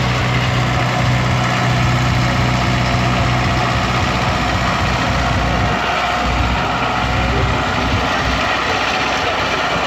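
Deutz D50S tractor's air-cooled diesel engine running hard as it pulls a brake sled along a dirt track. Its note deepens about six seconds in.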